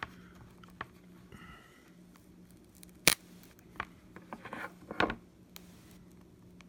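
Sharp clicks and a short scrape of pry tools working at the glass of an iPad mini screen being lifted off. The loudest click comes about three seconds in, with a brief scraping a second later.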